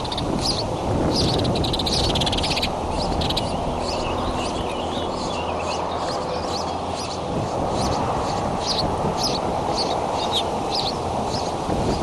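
Birds chirping outdoors: short high chirps repeated about once a second, with a quick trill and a warbling run among them. Under them is a steady rushing noise of wind on the microphone.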